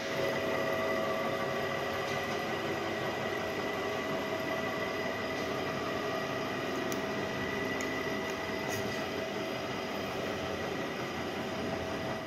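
Line-boring machine running its boring bar through the main bearing bores of a diesel engine block: a steady mechanical running noise with a constant high whine.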